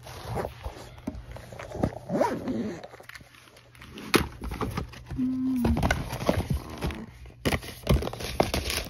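Items being rummaged through and moved around in a cardboard box: rustling and scraping with a string of sharp knocks and clicks, plus handling noise from the phone recording it.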